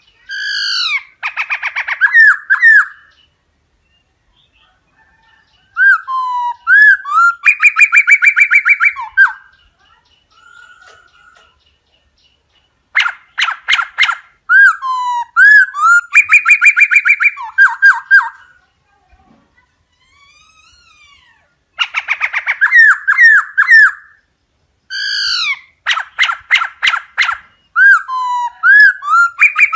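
Laughingthrush singing loud phrases of slurred whistles mixed with fast rattling trills. The phrases repeat with short pauses between them.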